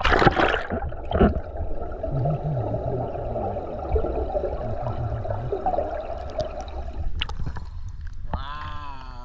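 Water splashing as a camera dips under the surface, then a steady muffled underwater wash with some gurgling. A person's voice is heard briefly near the end.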